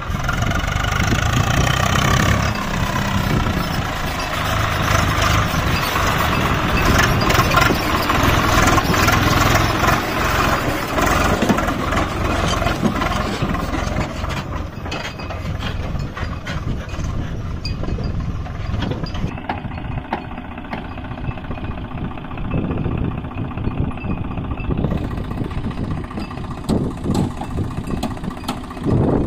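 Tractor diesel engine running under load, its pitch gliding in the first couple of seconds. It is loudest through the first half, then settles to a lower, steadier level.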